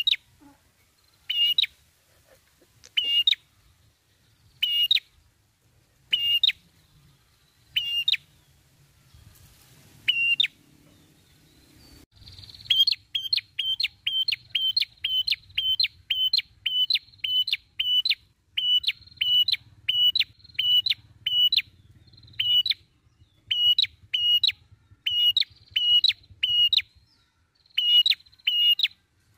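Caged red-headed prenjak, a rufous-headed tailorbird, calling: a short, sharp, high note repeated about every second and a half, then after a pause of a couple of seconds a fast run of the same note, about three a second, in bouts.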